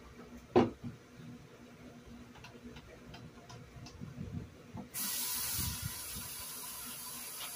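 A sharp knock about half a second in, then faint rubbing and small clicks from hands working up soap; about five seconds in a kitchen faucet is turned on and water runs steadily into the sink.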